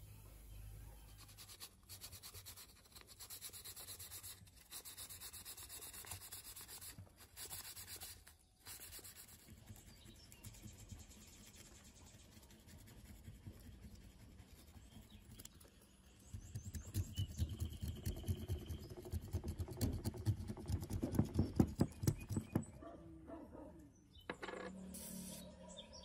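A small pointed metal scraper scratching caked dirt off a ceiling fan motor's stator and between its copper coil windings, in a quick run of rapid strokes for several seconds past the middle.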